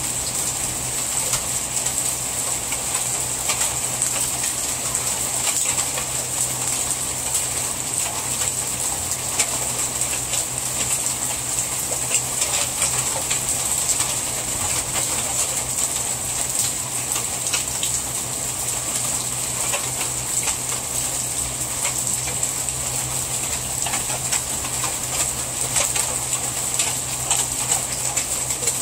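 Heavy rain pouring steadily, with dense pattering of drops on leaves and on a black plastic cover. A steady high hiss and a faint low hum run under it throughout.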